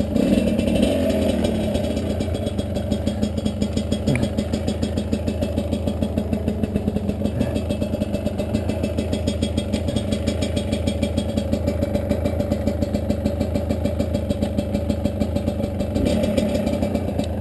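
Two-stroke dirt bike engine running steadily at idle, with a short rev at the start and another near the end.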